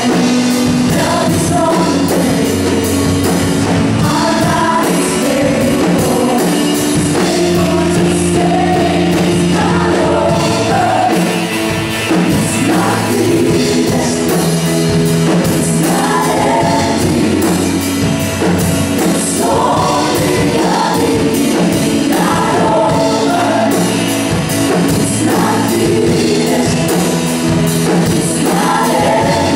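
Live worship band performing a gospel pop-rock song: male lead vocals with backing singers over drums and electric guitar.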